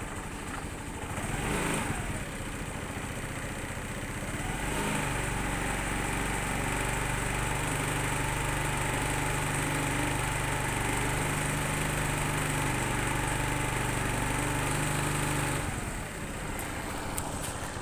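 Scooter engine started cold: from about five seconds in it idles steadily for some ten seconds, then it is switched off and stops abruptly a couple of seconds before the end.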